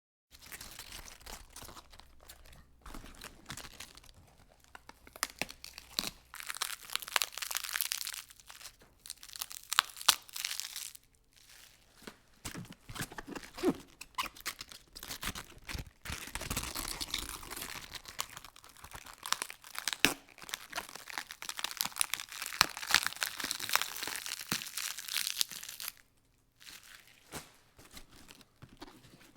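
Lettuce leaves being peeled and torn from a head of lettuce: crisp tearing and crackling in long runs, stopping briefly a few times.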